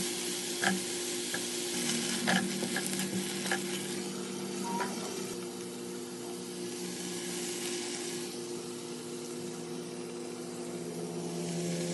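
Food sizzling in a hot frying pan as it is stirred, with a few clicks of the utensil against the pan in the first few seconds. The sizzle eases off in the second half, over a steady low hum.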